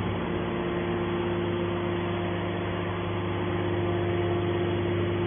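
Hydraulic power unit of a scrap metal baler running with a steady hum and one constant tone, while a hydraulic cylinder swings the baler's top lid open.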